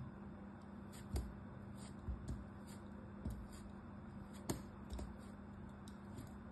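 Small knife blade cutting through a crumbly block, making about six crisp crunches at uneven intervals. The loudest comes about four and a half seconds in.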